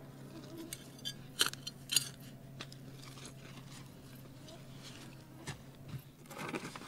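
Soil being dug and worked with gloved hands and a garden hand tool: scattered soft crunches and scrapes, the loudest two about one and a half and two seconds in, over a faint low steady hum.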